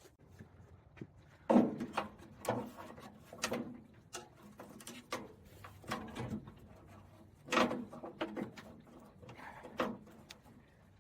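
Scattered knocks, clicks and clunks of parts being handled and fitted on a car door, with two louder clunks, one about a second and a half in and one about two-thirds of the way through.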